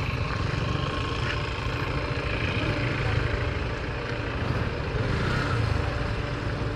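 Motorcycle engine running at low revs, a steady low rumble while the bike creeps along at walking pace.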